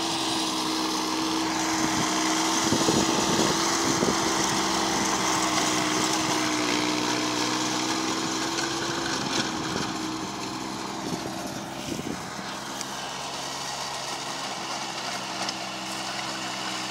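VST Shakti compact tractor's diesel engine running steadily while it drives a rotavator through the field. It is loudest in the first few seconds and grows quieter in the second half as the tractor draws away.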